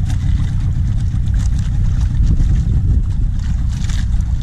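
Small fishing boat's motor running with a steady low rumble.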